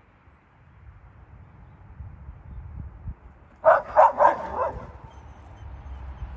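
Small dogs barking: a quick burst of about four sharp barks a little over halfway in.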